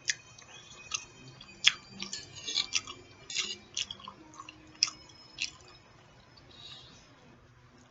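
A person chewing food close to the microphone, with irregular wet mouth clicks and smacks, busiest in the first five seconds and then fainter.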